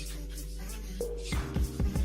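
Background music with a beat; deep bass hits come in about a second and a half in.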